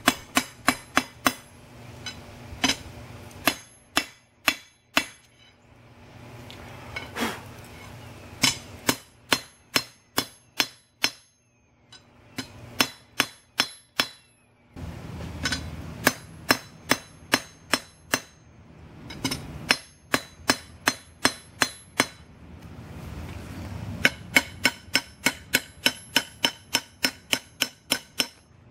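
Hand hammer striking a steel bar on an anvil while forging it, in quick runs of ringing metallic blows about two to three a second, with short pauses between runs.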